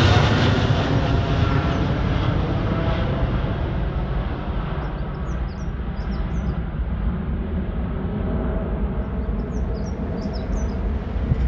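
Jet engines of a departing twin-engine widebody airliner, a Boeing 777, rumbling as it climbs away, the sound slowly fading with a faint falling whine in it. Small birds chirp in two short bursts in the second half.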